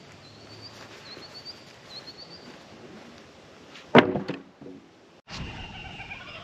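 A small bird chirps in short repeated phrases, then about four seconds in a heavy wooden board is dropped onto other timber boards with a loud clatter. Just after five seconds kookaburras start laughing.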